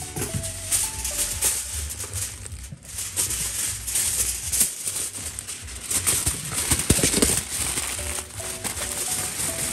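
Aluminium foil crinkling and rustling as it is handled and folded by hand, with background music that has a simple stepped melody near the start and again near the end.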